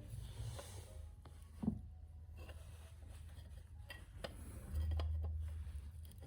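Light clicks and taps of metal tools and parts being handled, with a sharper knock about a second and a half in and a low hum for about a second past the middle.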